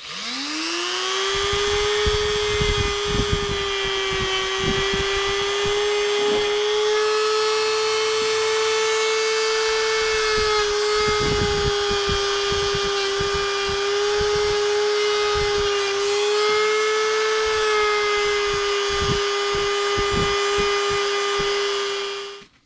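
Handheld rotary tool spinning up to a steady high whine while its small bit grinds against a metal boat fitting, with scraping contact noise and the pitch sagging slightly now and then under load. The motor cuts off suddenly at the end.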